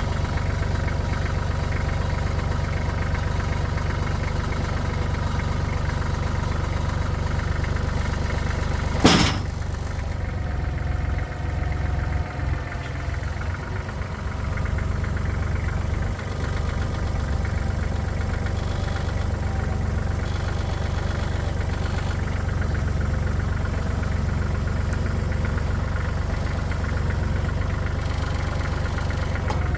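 An engine idling steadily, with one sharp clank about nine seconds in.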